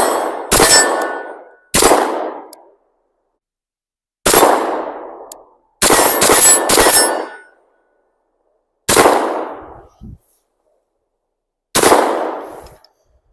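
CZ P-10 9mm striker-fired pistol firing 124-grain rounds, about eight shots at an irregular pace, with three in quick succession about six seconds in. Each report rings out and fades over about a second.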